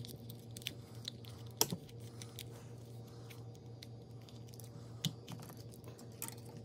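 Scattered small plastic clicks and taps as a NiMH receiver battery pack and its wires are pushed into a plastic RC receiver box and the lid is pressed on, the sharpest click about a second and a half in. A low steady hum runs underneath.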